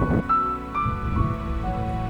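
Instrumental background music: a gentle run of single held notes over a low sustained tone.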